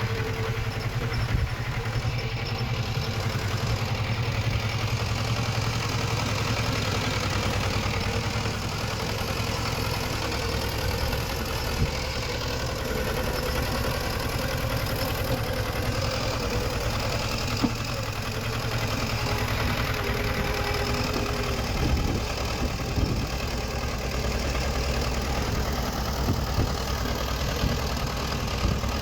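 Diesel engine of earthmoving machinery running steadily, with a few sharp knocks about 12, 17 and 22 seconds in.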